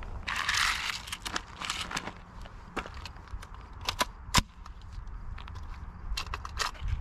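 Crunching steps on gravel and handling noise, with scattered clicks and one sharp knock about four and a half seconds in.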